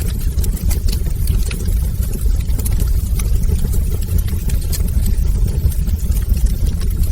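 Wood fire burning in a fireplace: a steady low rumble of the flames with frequent small crackles and pops scattered throughout.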